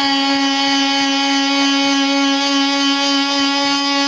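Ryobi 18V ONE+ cordless oscillating multi-tool with a sanding pad running at full speed: a loud, steady buzzing whine with many overtones.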